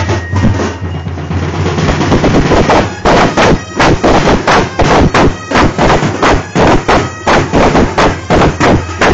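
Street drum line playing a fast, loud drum rhythm on paired harness drums. From about three seconds in, heavy accented strikes come at an even pace, roughly two a second.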